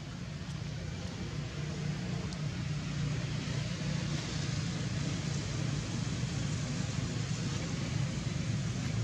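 Steady low hum of road traffic, a vehicle engine running, slowly growing a little louder.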